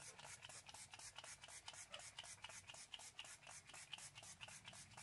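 Makeup setting spray misted at the face in many quick pump strokes, about six a second, each a short faint hiss.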